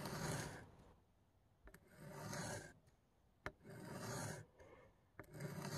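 Faint scraping of a knife's M4 steel tip edge being drawn across a wet diamond sharpening stone in single strokes: four strokes of under a second each, with short pauses between. The handle is lifted as each stroke crosses the stone so the angle follows the curved tanto tip.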